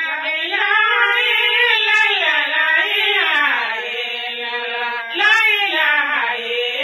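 A man's voice chanting in long, gliding sung notes, amplified through a microphone.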